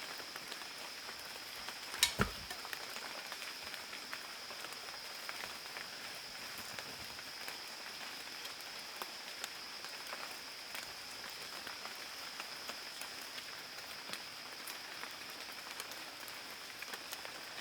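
Outdoor forest ambience: a steady high-pitched hum with many small scattered ticks and pattering, and a sharp double knock about two seconds in.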